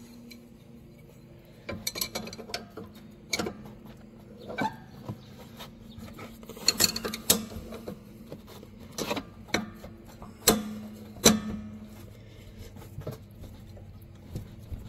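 Steel spanner wrenches clicking and knocking against the notched lock collars of a front coilover, as the two threaded collars are tightened against each other to lock in the spring preload. The metal clicks come irregularly, a few at a time.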